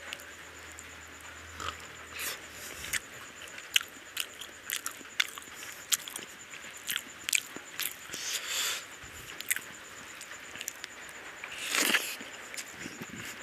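Close-miked eating by hand: wet chewing and irregular sharp smacks and clicks from the mouth, with a longer, louder mouthful sound about twelve seconds in.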